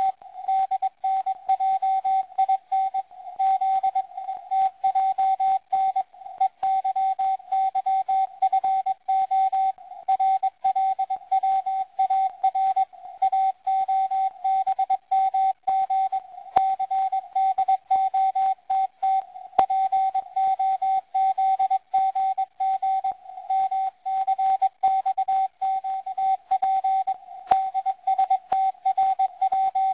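Morse code from the 4XZ CW number station, received on shortwave through a web-based radio receiver: a single steady-pitched beep keyed on and off in quick dots and dashes, with short gaps between five-letter groups.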